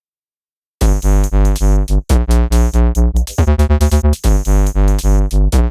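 Electronic music with a synthesizer and a heavy pulsing bass, starting abruptly under a second in, with brief drops in the beat.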